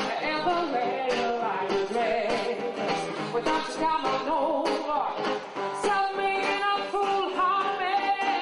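Live song performed by a woman singing into a microphone, accompanied by a strummed acoustic-electric guitar.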